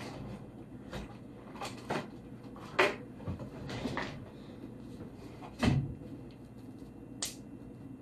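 Scattered handling knocks and clicks, such as cupboard doors and objects moved about at a kitchen counter. The loudest are a sharp knock about three seconds in and a heavier thump just before six seconds, with a sharp click near the end.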